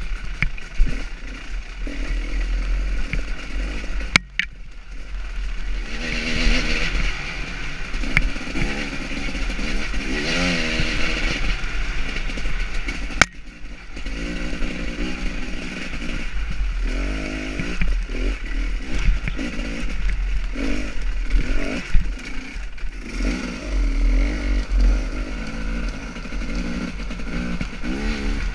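KTM 300 XC two-stroke dirt bike engine revving up and down under hard riding on a rough trail, the throttle opening and closing constantly. The sound drops out briefly twice, about four and thirteen seconds in.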